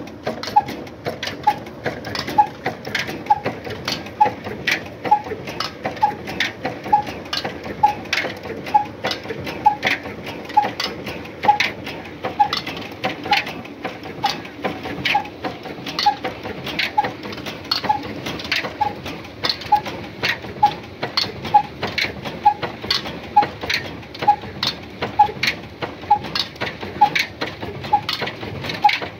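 Old Ruston Hornsby diesel engine running steadily with a sharp, even beat a little under two strokes a second, belt-driving a tubewell pump.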